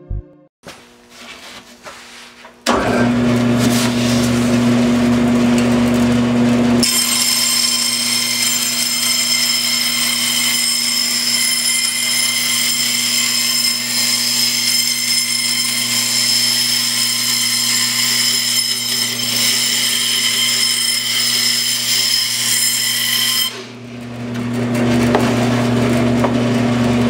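Band saw starts about three seconds in and runs with a steady hum. Then its blade cuts through a faux stone panel for about sixteen seconds, adding a high-pitched whine. Near the end the cut finishes and the saw runs on without load.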